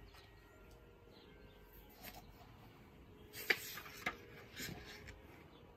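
Paper pages of a hardcover art book being turned and handled: a few brief, soft rustles, with a sharper crackle about three and a half seconds in.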